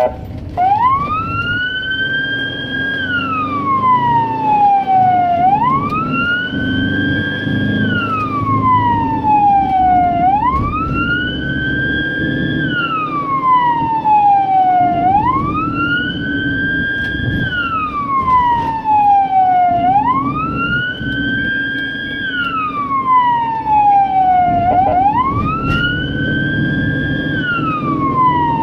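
Ambulance siren sounding a slow wail, heard from inside the cab. Each cycle rises quickly, holds at the top, then falls slowly, about once every five seconds, over the steady low rumble of the van's engine and road noise.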